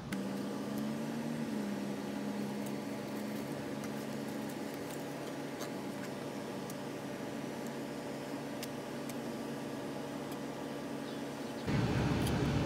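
A steady low mechanical hum with a faint pitch, like a motor running, rising slightly about half a second in and then holding, with faint scattered ticks. Near the end a louder rumbling noise cuts in abruptly.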